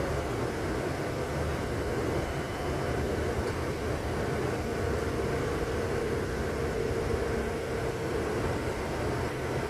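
Steady low rumble of a running vehicle, with a constant drone.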